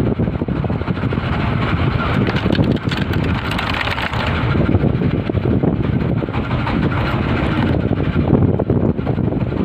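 A boat engine running steadily, a constant loud rumble with no change in pace.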